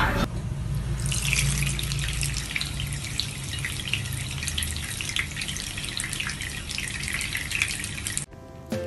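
Water running from a bathroom sink tap, a thin stream splashing steadily onto a tabby cat lying in the basin. Music cuts in abruptly shortly before the end.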